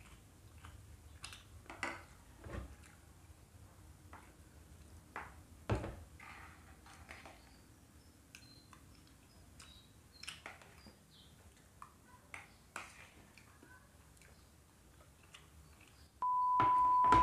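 Quiet eating sounds: scattered small clicks and taps of fingers and food on a plastic plate. Near the end a loud, steady electronic beep of one pitch sounds for about a second and a half.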